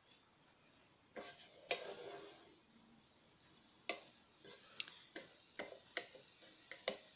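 Slotted wooden spatula stirring broccoli in a frying pan, with a scattering of light scrapes and taps from about a second in, over a faint sizzle of the vegetables cooking.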